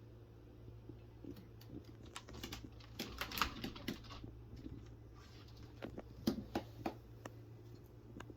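Irregular light taps and clicks, bunched into a quick flurry about three seconds in and another group a little later, over a steady low electrical hum.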